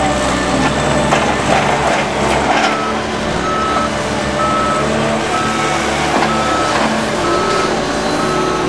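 Diesel engine of a telehandler working on a silage clamp, with a reversing alarm that starts beeping about three seconds in, at a steady rate of roughly one beep every three quarters of a second.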